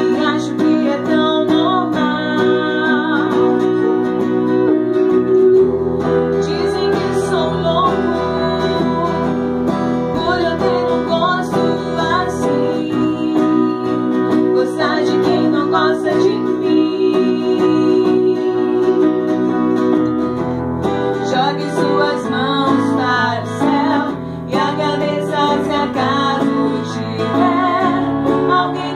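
Women's voices singing a song over instrumental accompaniment, with long held notes.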